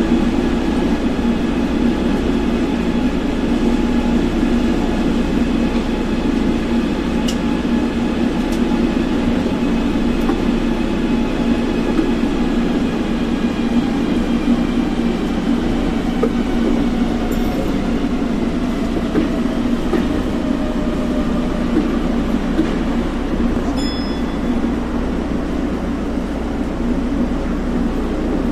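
Osaka Monorail train running on its track beam, heard from inside the cab: a steady running rumble from the rubber tyres with a traction-motor whine that slowly drops in pitch over the second half, as the train slows. A few faint clicks come through.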